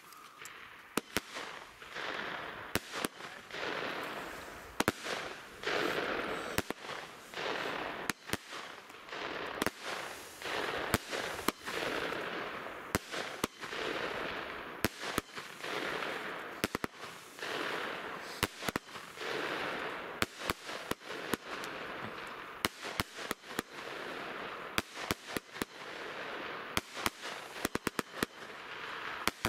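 A 25-shot strobe (Blinker) firework battery, the Zena Baldur, firing: sharp shot reports follow one another at irregular intervals, about one to two a second, over a swelling hiss from the strobing stars.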